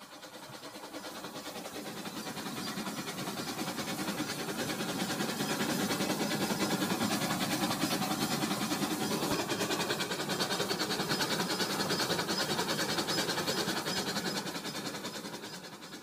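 Toy train set running on toy track: a steady mechanical whir and rattle of the locomotive's small motor and wheels. It grows louder as the train comes close, then fades as it moves away near the end.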